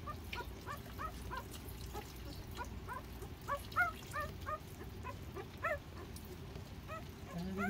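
Newborn Jindo puppies squeaking and whimpering as they nurse: a run of short, high, rising-and-falling squeaks, a few a second with brief pauses.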